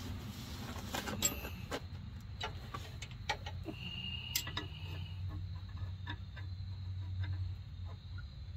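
Scattered light metallic clicks and taps as nuts, bolts and the bottom bracket of a Sumo Springs helper spring are handled and fitted by hand, over a steady low hum. A high steady tone sounds for about a second and a half near the middle.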